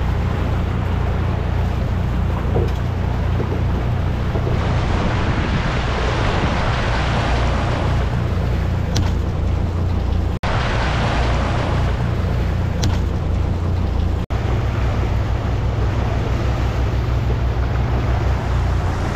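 Fishing boat's engine running steadily under way, a low drone with water rushing and churning in the wake. The sound cuts out briefly twice.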